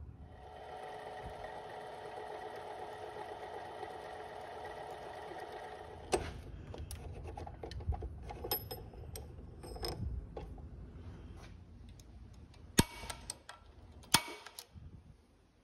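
Harbor Freight mini metal lathe running with a steady motor and gear whine for about six seconds, then stopping. Scattered metallic clicks and knocks follow, with two sharp clicks near the end.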